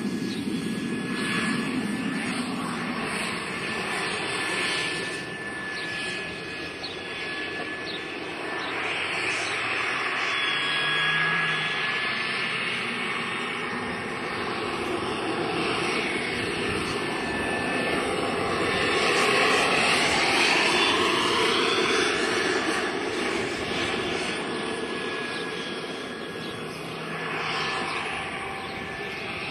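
Radio-controlled model helicopter flying: a whirring rotor with a thin motor whine, rising and falling in pitch and loudness, loudest about two-thirds of the way through.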